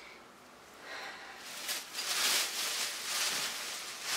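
Rustling and handling noise that starts about a second and a half in and swells and fades several times, as items are picked up and moved about.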